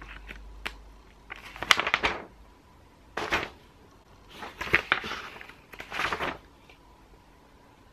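Handling of flat-pack furniture parts and packaging: a string of about six short rustles and clicks over the first six seconds, then quiet.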